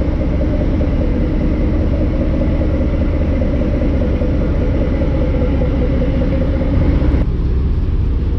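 Riverboat's engine running with a steady low rumble and hum as the boat pulls away from the quay. About seven seconds in, the higher part of the sound drops away suddenly while the low rumble goes on.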